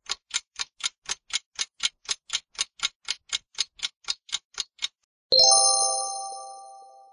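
Countdown timer ticking like a clock, about four ticks a second. The ticking stops, then a bright chime of several ringing tones sounds and fades over about two seconds, marking the correct answer.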